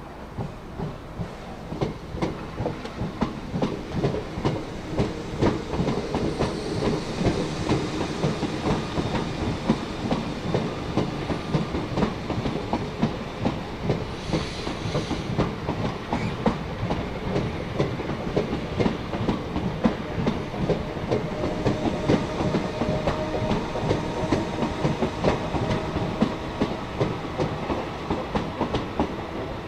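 Train running past close by, its wheels clattering over the rail joints. The sound builds over the first few seconds, and a brief hiss comes about halfway through.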